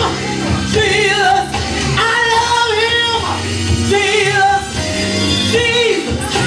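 A woman singing a gospel song into a handheld microphone, with vibrato on held notes, over instrumental accompaniment with sustained low notes.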